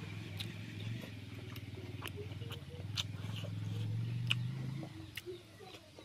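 Wet clicks and smacks of someone chewing and eating with his hands, over a low steady engine hum that stops about five seconds in.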